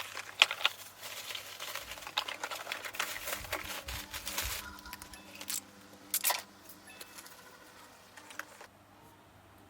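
Rustling and crinkling of trash and cardboard being handled and thrown out, with scattered sharp knocks and clicks; it dies down after about six seconds.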